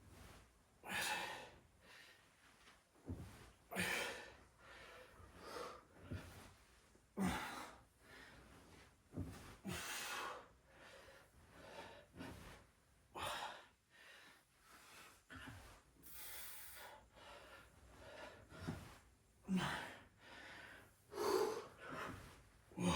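A man breathing hard under exertion, puffing out sharp breaths every second or two as he strains through squat reps.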